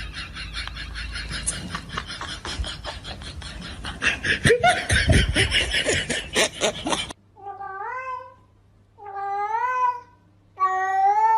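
A domestic cat meowing three times, about a second and a half apart, each call rising and then falling in pitch. Before that comes a stretch of dense clattering noise that ends abruptly about seven seconds in.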